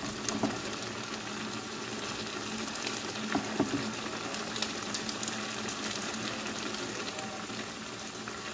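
Noodles and broth simmering in a pan, bubbling and crackling with many small pops, over a steady hum; a wooden spatula stirs the noodles near the end.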